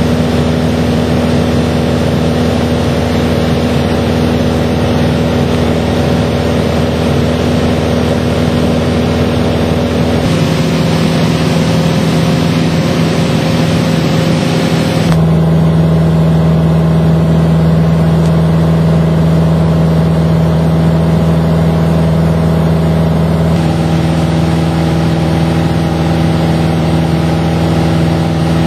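Steady drone of a single-engine light airplane's piston engine and propeller, heard inside the cabin. Its tone changes abruptly three times.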